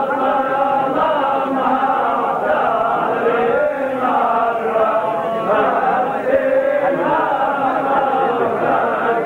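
Men's voices chanting a zajal verse in Arabic together, long wavering notes held without a break.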